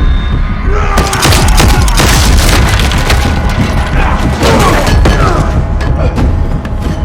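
Film action soundtrack: dramatic score under heavy booms and crashing impacts, densest from about a second in and thinning near the end.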